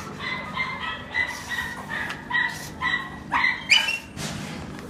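Dog barking and yipping in a rapid run of short, high-pitched calls, about two or three a second.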